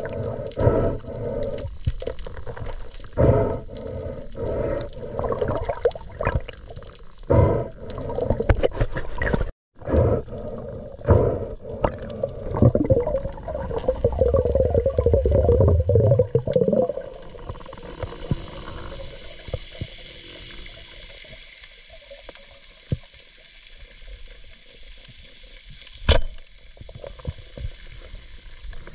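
Water sloshing and gurgling with irregular knocks, muffled as if heard underwater, with a brief dropout about ten seconds in; after about seventeen seconds it settles to a quieter steady hiss with one sharp click near the end.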